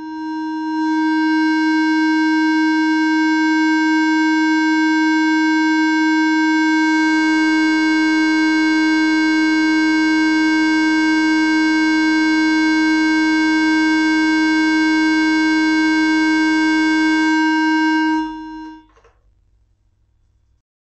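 A steady pure test tone at one unchanging pitch, played to set a violin plate vibrating for Chladni-pattern plate tuning. The tone sits at a resonance of the plate, shaking the sprinkled particles into a ring-shaped nodal pattern. It turns buzzier about seven seconds in and cuts off a little before the end.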